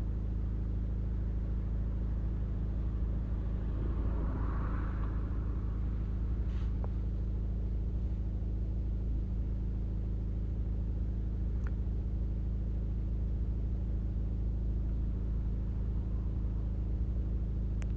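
A steady low hum, with a few faint light clicks about six and twelve seconds in.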